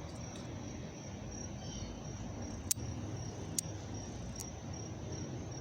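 Crickets chirping steadily outdoors, a high pulsed chirp repeating about two to three times a second over a low background rumble. Three sharp clicks come in the middle.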